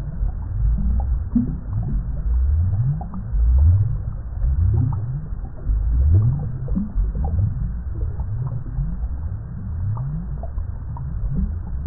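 Water bubbling: a continuous run of deep bubbles, each one sliding quickly up in pitch, several a second, with fainter small pops above them.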